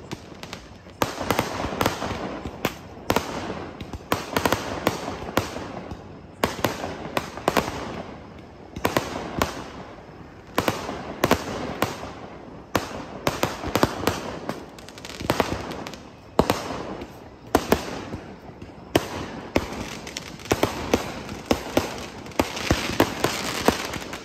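Aerial fireworks bursting overhead in quick succession: clusters of sharp bangs every second or two, with crackling between them.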